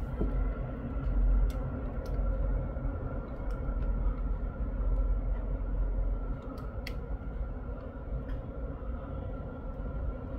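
Road traffic rumbling at a busy junction. The rumble is heaviest in the first six seconds or so, as a double-decker bus and a flatbed van pass, then eases to a lighter steady rumble, with a few faint clicks.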